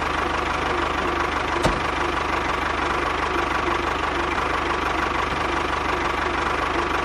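A small engine running steadily at idle with a fast, even beat, and one brief click about a second and a half in.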